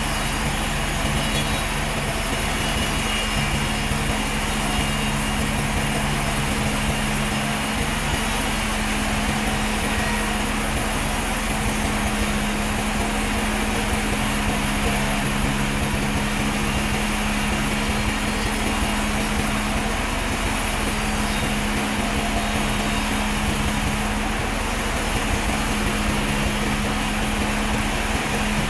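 Sawmill machinery running with a steady drone: a constant low hum under an even mechanical hiss, with no cuts or impacts standing out.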